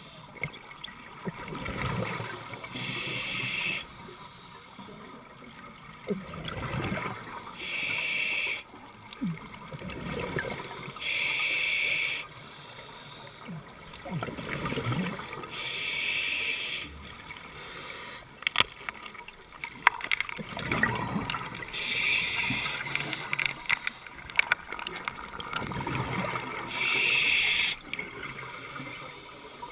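Scuba diver's regulator breathing underwater: a hiss on each inhalation about every four to five seconds, alternating with the gurgling rush of exhaled bubbles. A few sharp clicks come in the middle.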